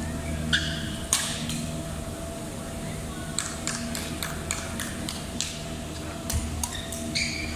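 Badminton rackets striking a shuttlecock in a doubles rally in a large hall: a run of sharp hits, two early and then a quicker string of them about three seconds in.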